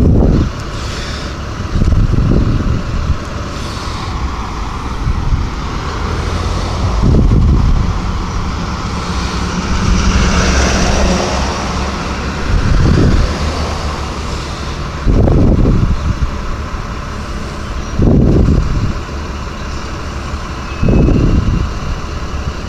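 Road traffic going by, with one vehicle passing about ten seconds in. About seven short, loud, low rumbles every few seconds stand out above it.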